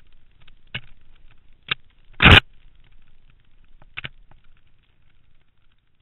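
A few sharp knocks and scrapes on a point-of-view camera riding a mountain bike trail, over a faint rustle. The loudest knock comes a little over two seconds in, and the sound fades out near the end.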